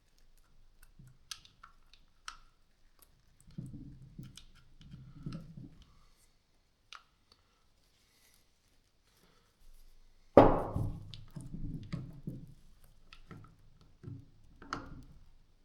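Small clicks and handling knocks from parts of a hammer drill being worked on during disassembly, with one loud thunk about two-thirds of the way in.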